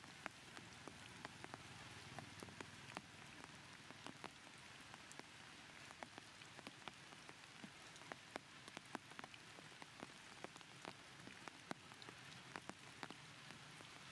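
Faint rain falling: a soft steady hiss with irregular sharp drop ticks, a few a second.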